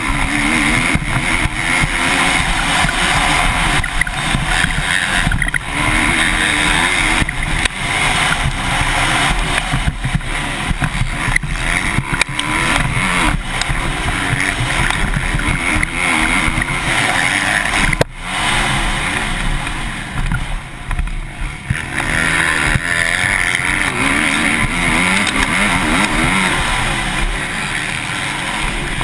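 Motocross bike engine revving hard under racing throttle, heard close up from a helmet-mounted camera, its pitch rising and falling with throttle and gear changes. About eighteen seconds in there is a sharp knock, and shortly after the engine drops back briefly before pulling hard again.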